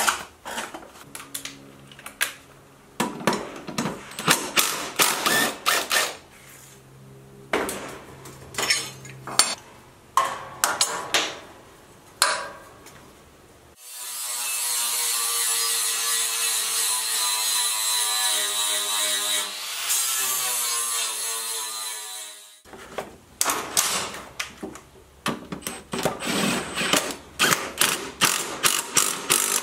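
Irregular scraping and knocking as caked grass clippings are cleared from a lawn mower's steel underdeck. Then about nine seconds of a steady, high grinder whine that starts and stops abruptly, sparks showing at the work. Near the end, short rattling bursts of a cordless impact driver on the blade bolt.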